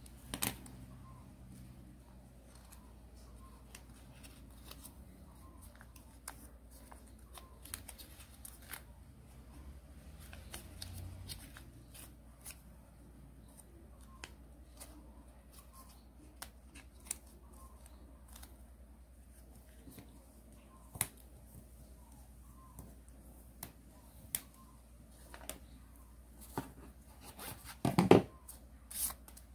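Origami paper being folded and creased by hand: scattered faint crinkles, rustles and small taps, with a louder burst of paper handling and knocks near the end.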